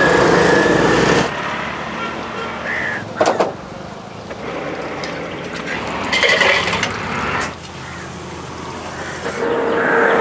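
Street traffic, with motor vehicles passing close by several times; the passes are loudest at the start and near the end.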